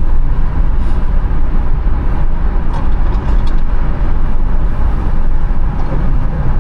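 Steady, loud rumble of a car being driven, heard from inside the cabin: road and engine noise.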